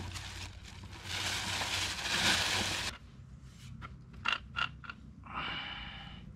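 Rustling and scraping, then a few sharp metallic clicks and clinks as a pipe wrench is set on a brass fitting in black poly well pipe.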